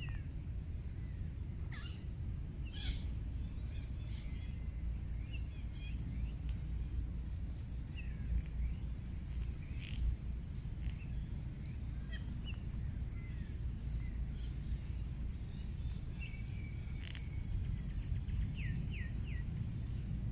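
Birds giving scattered short chirps and calls, with a quick run of three or four rising chirps near the end, over a steady low rumble.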